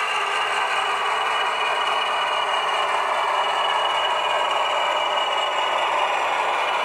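Sound decoder in a model PKP diesel shunting locomotive playing a steady diesel engine running sound through its small onboard speaker, thin and without deep bass, as the model moves slowly along the track.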